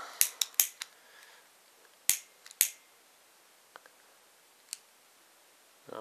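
Butane crème brûlée torch's piezo igniter clicking: four quick clicks in the first second, two sharper ones about two seconds in, then a couple of faint clicks. The torch holds only a little butane, so it struggles to light.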